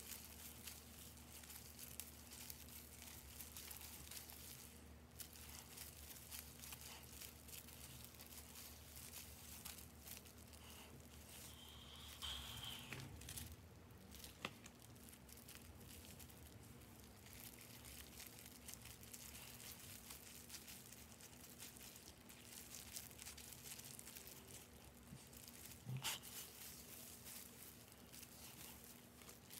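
Faint rustling and crinkling of gloved hands working semi-permanent hair dye through hair, with a few soft clicks, over a low steady hum.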